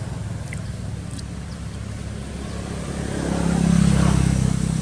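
A motor vehicle engine running steadily, growing louder about three seconds in and easing off near the end, as a vehicle passing close by.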